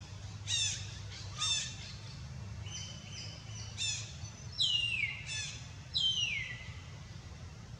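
A series of high-pitched animal calls: several short sharp calls, a held whistle-like note, and two longer calls that slide down in pitch, over a low steady hum.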